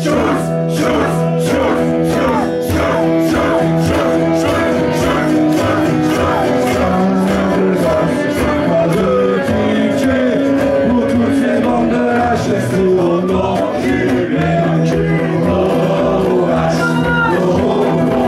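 Rock band playing live through amplifiers, with electric guitars over a steady beat and voices singing.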